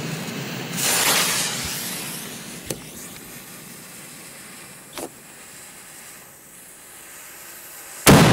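Fuse of a large Polish firecracker (Polenböller) hissing as it burns down, with a louder rush of hiss about a second in and two small pops, then a single very loud bang as the firecracker goes off near the end.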